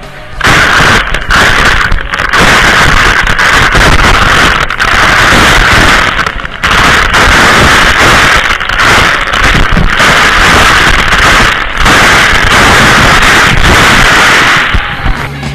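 Waterfall water pouring straight onto the camera, a loud, harsh, near-clipping rush that dips briefly a few times and eases off near the end.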